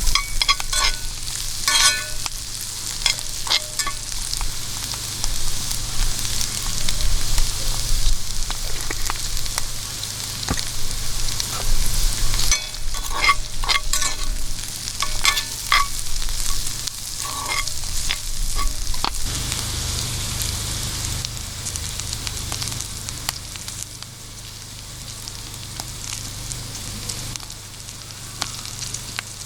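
Food sizzling and crackling as it fries in hot oil, with a few short clinks now and then. The sizzle dies down somewhat near the end.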